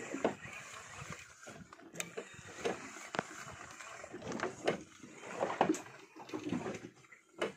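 Sharp clicks and knocks on a small fishing boat at sea, with faint voices in the background.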